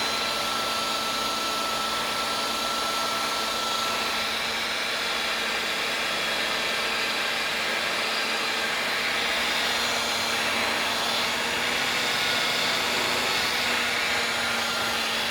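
Electric power buffer running steadily as it buffs a scratched welding-hood lens, a steady motor hum with a whine and hiss. The hiss grows rougher from about four seconds in.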